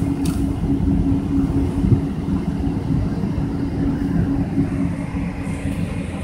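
Cabin noise inside a taxiing Boeing 777-200: a steady low rumble of the engines at taxi power and the rolling aircraft, with a constant low hum.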